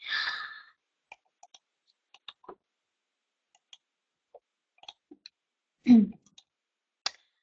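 A short breath, then faint scattered small clicks over several seconds, with a brief voiced hum about six seconds in.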